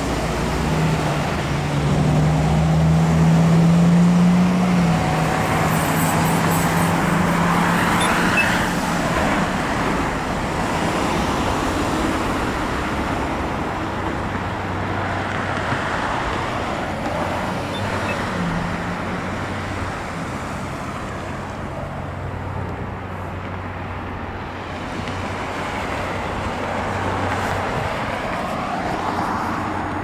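Road traffic at an intersection: cars passing one after another with tyre and engine noise swelling and fading as each goes by. A nearby vehicle's low engine hum is loudest in the first few seconds.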